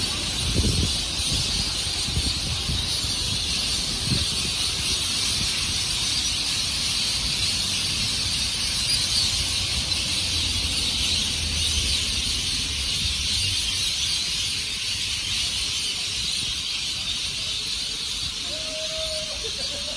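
Evening street ambience: low rumble of passing cars under a steady, high-pitched hiss.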